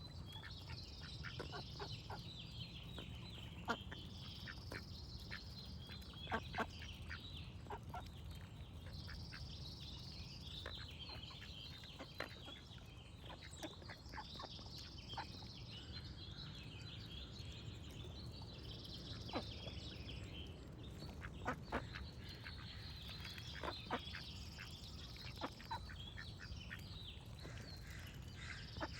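Ducks quacking in short, sharp calls scattered irregularly. Songbirds chirp continuously underneath, with a higher trill that comes back every four to five seconds, over a steady low rumble.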